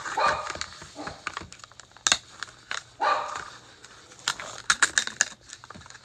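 A pet dog barking twice, right at the start and again about three seconds in, over the crinkle and clicks of a plastic surprise-capsule wrapper being peeled open by hand.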